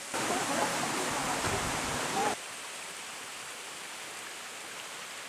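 Running water of a mountain stream, louder for about two seconds before an abrupt cut to a quieter, steady wash.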